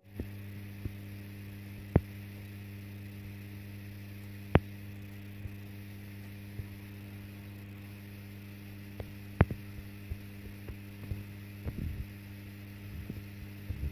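Steady electrical mains hum with a low buzz of overtones. Sharp clicks break through it: loud ones about two, four and a half and nine and a half seconds in, and a run of smaller clicks near the end.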